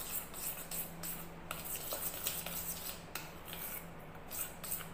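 Metal spoon stirring a thick milk paste in a small stainless-steel cup, scraping and clinking against the sides and bottom in quick, irregular strokes.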